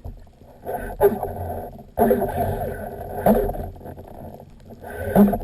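Water noise on a diver's action camera, coming in irregular surges about a second long.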